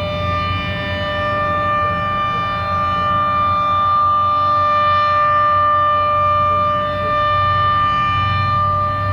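Federal Signal Model 7B outdoor warning siren sounding its steady Alert signal: one held pitch with no rise or fall, swelling slightly louder in the middle.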